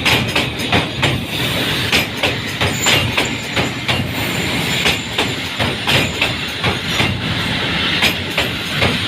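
Train passing over a bridge close by, its wheels clacking over the rail joints in an uneven run of sharp clicks over a steady rumble.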